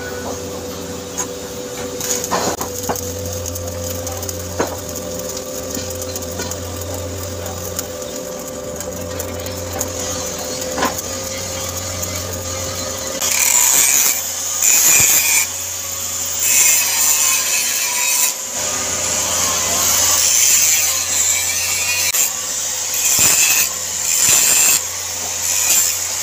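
Stick (SMAW) welding arc crackling as a capping pass is run around a 10-inch carbon steel pipe joint, over a steady hum. The crackle grows louder and more uneven from about halfway through.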